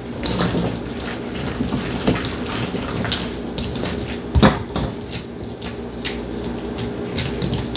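Spoon stirring elbow macaroni through a thick cheese sauce in a mixing bowl: wet squelching with light scrapes and clicks against the bowl, and one louder knock about four and a half seconds in.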